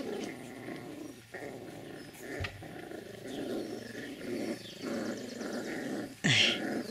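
Puppies growling at each other as they play-fight, a cockapoo puppy and a dark-coated puppy, in low, rough growls. There is one louder, sharper sound near the end.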